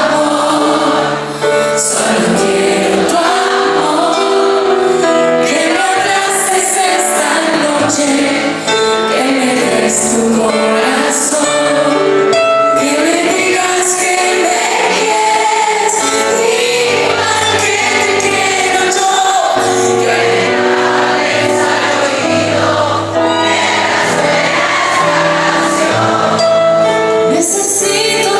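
Pop song sung by several female voices together over a full band with bass and drums, performed live.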